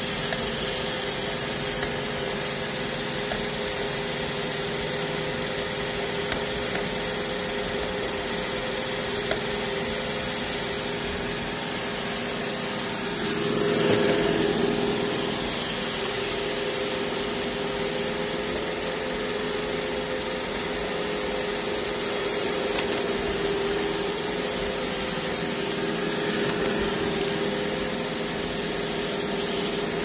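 iRobot Roomba e5 robot vacuum running across a hard tile floor: a steady motor whine with a hiss. It grows louder for a couple of seconds near the middle, and there are a few faint ticks.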